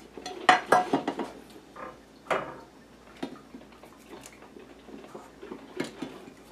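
Metal muffin tin and baking tray clanking and knocking as baked pie-crust cups are lifted out and set down: a few sharp strikes close together about half a second in, then scattered lighter knocks.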